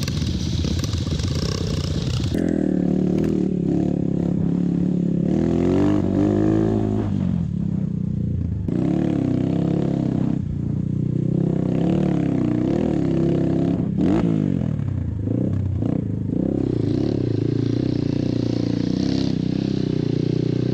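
Viar Cross X 200 trail motorcycle's single-cylinder engine heard from the rider's seat while riding a dirt track, its pitch rising and falling over and over as the throttle is opened and eased.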